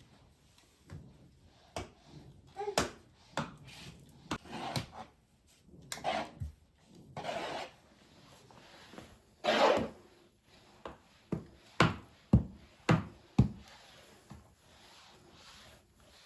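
Household tidying sounds: a string of light knocks and clicks as objects are handled and set down, with a few short rubbing swishes, the longest about two-thirds of the way through. A quick run of sharp knocks comes near the end.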